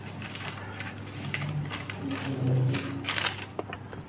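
Plastic packaging crinkling and rustling as a phone's back cover is worked out of its sleeve and handled, in irregular crackly bursts with a couple of sharper clicks near the end.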